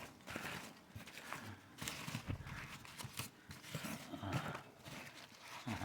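Packing material and a cardboard shipping box being handled and dug through, in a string of irregular rustles, crackles and light knocks.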